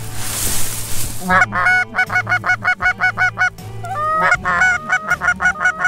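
Canada goose calls blown hard and fast ("hammering"): a rapid run of short clucks and honks, about four or five a second, starting just over a second in after a brief rustle, pausing briefly past the middle, then resuming. This is aggressive calling at passing geese to turn them toward the decoys.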